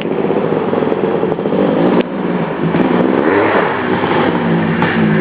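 Dirt bike engine running, its revs rising and falling again and again as it is ridden.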